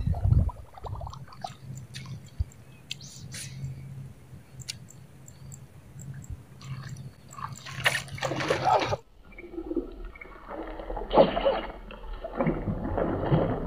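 Water splashing in bursts, heaviest in the second half, as a hooked snakehead thrashes at the surface of a shallow swamp pool while it is reeled in on a casting rod.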